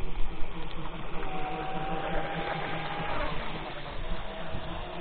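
Electric RC speedboat running fast across the water: a steady high whine from its brushless motor and propeller that falls in pitch about three seconds in as the boat goes by.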